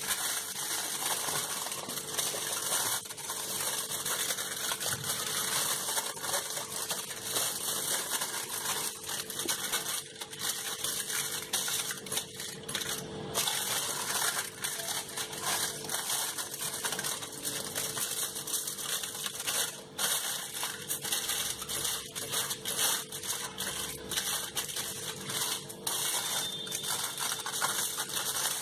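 Aluminium foil crinkling and rustling as hands roll it tightly around a soft biscuit-dough log, a dense crackle of many small clicks.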